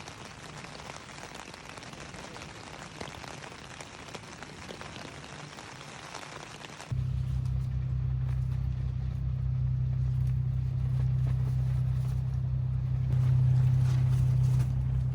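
Steady rain falling, then about seven seconds in a sudden cut to a much louder, steady low hum and rumble.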